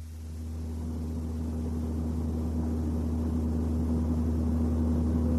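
Low, steady booming drone from a car driven at about 90 km/h, slowly growing louder, with a steady higher hum above it. The drone measures 60 Hz, which points most likely to an unbalanced or out-of-true propeller shaft.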